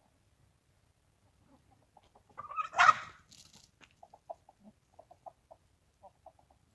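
Backyard chickens clucking: one loud, harsh squawk about three seconds in, followed by a run of short, soft clucks.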